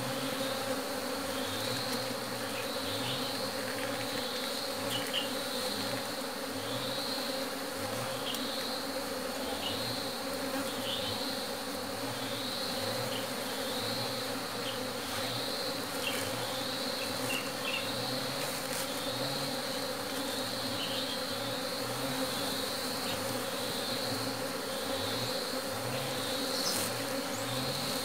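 A mass of honeybees buzzing steadily around a hollow log hive, stirred up as another colony is smoked and merged into it. A short high chirp repeats about once a second behind the buzz.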